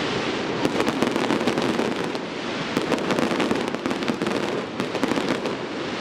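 Fireworks going off: a dense, continuous crackle of many rapid small pops, with sharper cracks scattered throughout.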